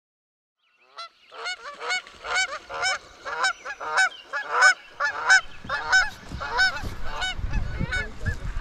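Geese honking repeatedly, about two calls a second, starting about a second in and fading toward the end. A low rumble comes in near the end.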